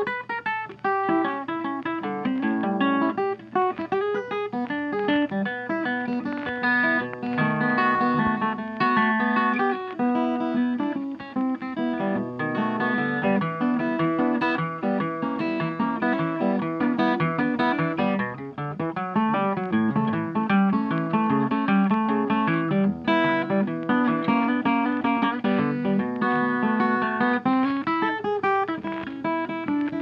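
Background music: plucked guitar playing a steady run of notes.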